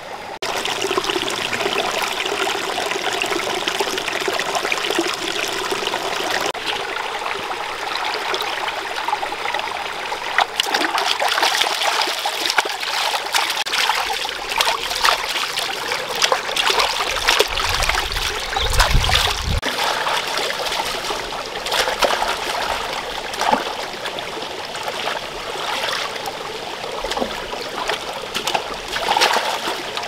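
Shallow rocky stream flowing and trickling, with repeated splashing and sloshing as hands wash pig intestines in water in a metal wok; the splashes get busier after about a third of the way in.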